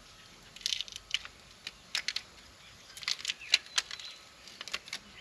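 Irregular small clicks and light rattles from handling the metal tools and parts of a tire plug repair kit, in quick clusters of a few clicks at a time.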